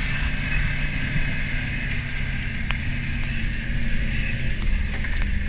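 GAZ-66 truck's engine running steadily as the truck drives over rough ground, heard inside the cab, with a few light knocks from the body.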